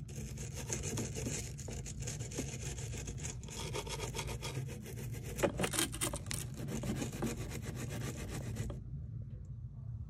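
A small hand wire brush scrubbed rapidly back and forth on the metal exhaust outlet of a Vevor 8K diesel heater, a dense scratching that stops about nine seconds in. This is scuffing the shine off the metal so exhaust sealer will stick.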